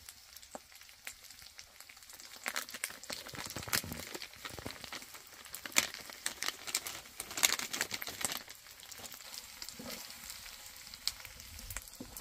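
Gnocchi and pancetta sizzling and crackling in a cast-iron pan, a dense patter of small pops over a hiss. It grows louder in two spells, about a third of the way in and again just past the middle.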